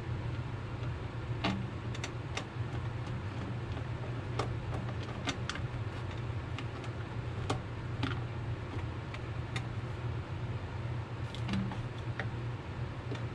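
Hand screwdriver turning screws into an Echo PB-250LN leaf blower's plastic engine cover, giving irregular small clicks and taps of tool, screws and housing, over a steady low hum.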